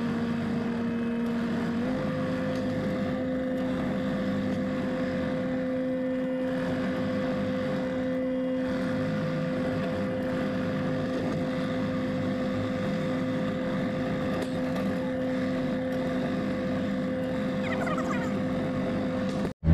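John Deere 50G compact excavator's diesel engine and hydraulics running steadily, heard from inside the cab, with a steady whine that steps up slightly in pitch about two seconds in.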